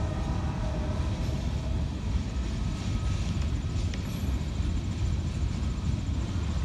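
Freight train cars rolling past, a steady low rumble of steel wheels on rail.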